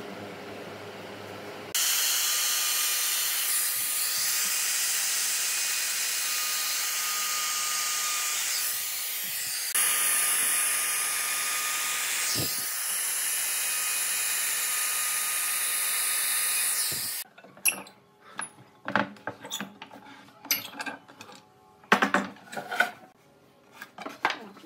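Handheld trim router running and cutting the edge of a pine workpiece, a steady high whine with hiss that starts abruptly and cuts off suddenly after about fifteen seconds. After that come scattered light knocks and taps of wood being handled on the bench.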